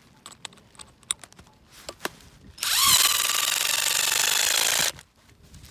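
Power drill running under load for about two seconds, driving a drill pin into the ground; the motor whines up as it starts and then cuts off suddenly. Before it come a few light clicks and knocks.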